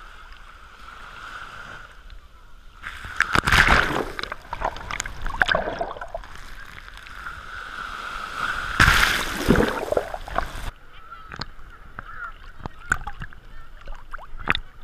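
Sea waves breaking at the water's edge right over the camera, with two loud crashes about three and a half and nine seconds in and water washing back between them. After a sudden change near the end, quieter water sloshing and small splashes around the camera in the sea.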